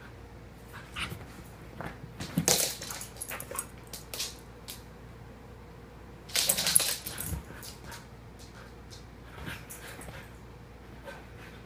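Two dogs playing, with short scuffling noises and soft dog sounds. There are two louder bursts, about two and a half seconds in and again around six to seven seconds.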